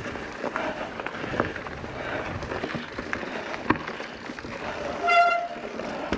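Mountain bike rolling over a dirt trail: steady tyre noise with scattered knocks and rattles, and a short high-pitched honk about five seconds in.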